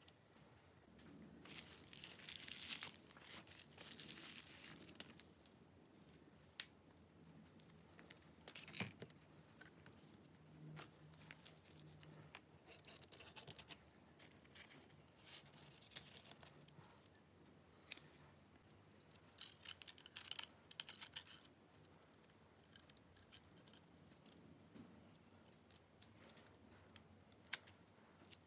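Faint handling noise from gloved hands reassembling an OPPO Neo 9 smartphone: scattered light clicks and taps of the plastic and metal parts, with stretches of rustling, the busiest a few seconds in. A faint high-pitched tone sounds for a few seconds about two-thirds of the way through.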